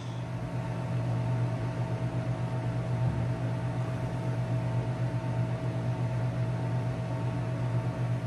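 A steady machine hum: a constant low drone with two faint, steady higher tones above it.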